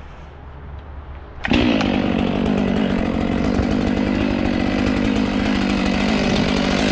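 Stihl 500i two-stroke chainsaw snapping up to full revs about a second and a half in, then holding a loud, steady high-rev note.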